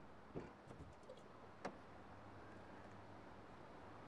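Near silence with a faint steady hum, broken by a few soft clicks and one sharper click about a second and a half in, as a car's rear door latch is released and the door opened.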